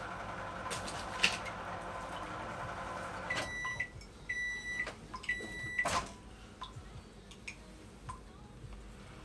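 Microwave oven running with a steady hum that stops about three seconds in, followed by three even end-of-cycle beeps. There is a sharp click early on and a knock just after the last beep.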